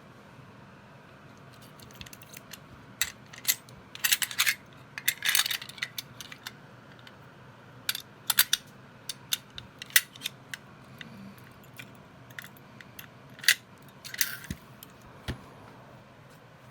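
Irregular sharp metallic clicks and clinks from a MAXCLAW PC142 aluminium-bodied ratchet pipe cutter being worked by hand during a tool-free blade change. There are short clusters of rattling about four to five seconds in and again near the end.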